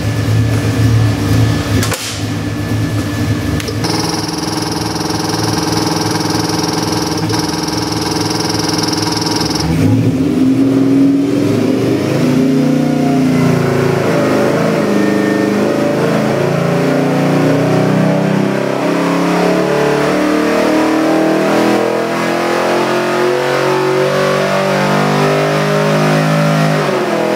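363 cubic inch Ford small-block stroker V8 running on an engine dyno. It holds a steady speed for about ten seconds, then makes a full-power pull under load, its pitch climbing steadily to about 6,200 rpm. It drops off right at the end.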